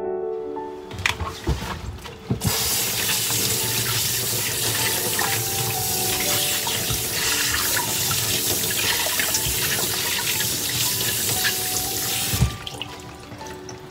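Kitchen tap running steadily into a stainless steel sink as young corn cobs are rubbed and rinsed under the stream, after a few knocks at the start. The water shuts off about a second before the end.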